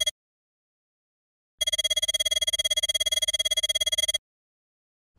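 Electric bell ringing in a rapid trill of many strokes a second, a sound effect. It cuts off just after the start and returns about a second and a half in for about two and a half seconds, with dead silence around it.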